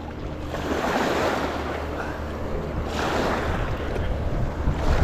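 Small waves washing in over a pebble shoreline in repeated surges, with wind buffeting the microphone.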